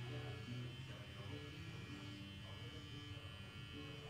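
Faint steady low electrical buzz in the recording, with soft tones shifting in pitch above it.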